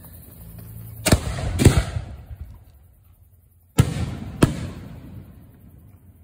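Aerial firework shells being fired from mortar tubes close by: four sharp booms in two pairs, each pair about half a second apart, each boom dying away in a short rumble.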